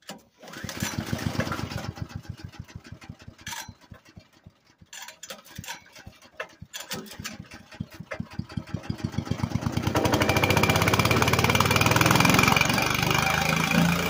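Small single-cylinder engine of a LandWorks drum wood chipper, running on wood gas fed by hose from a gasifier, starting up: it fires unevenly and sputters for several seconds, then picks up speed and settles into steady running about ten seconds in.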